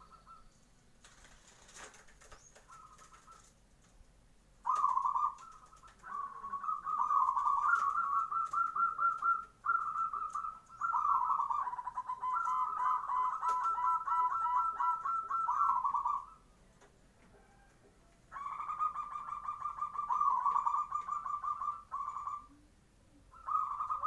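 Zebra dove (perkutut) cooing: several bouts of rapid, staccato cooing notes separated by pauses, the longest running from about five to sixteen seconds in.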